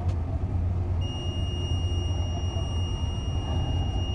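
Boat engines running with a steady low rumble while manoeuvring alongside. About a second in, a continuous high-pitched electronic beep starts and holds for about three seconds.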